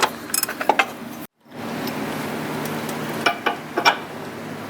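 Light metallic clinks and taps of hand tools on suspension parts, then, after a sudden brief dropout, a steady background hiss with a low hum and two more short taps.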